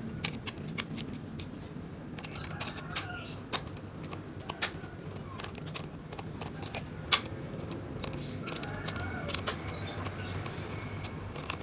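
Irregular small sharp clicks and taps of laptop parts and screws being handled during a hardware install, a dozen or so spread unevenly.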